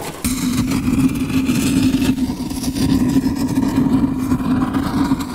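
Logo sting sound effect: a loud, steady engine-like rumble with a low hum running under it.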